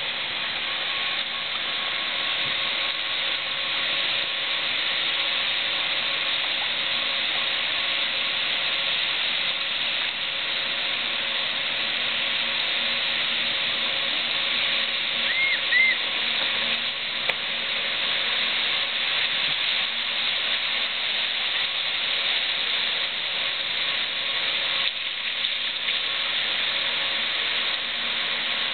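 Steady rushing of water along a log-flume ride's channel, with a faint steady hum underneath.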